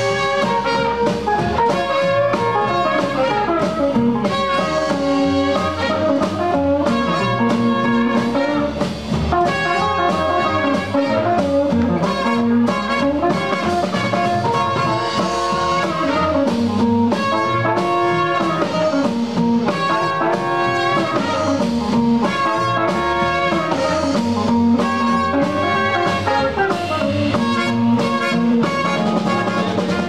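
A live band playing an upbeat instrumental, a horn carrying the melody in repeated phrases over electric guitar and drum kit.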